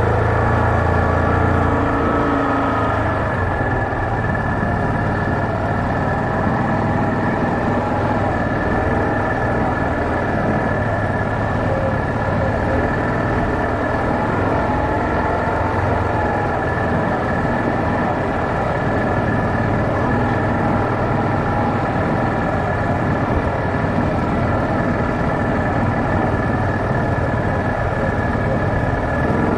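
Yamaha Kodiak 450 ATV's single-cylinder engine running steadily at low trail speed, heard close up from the handlebars, with a thin steady high whine over the engine note.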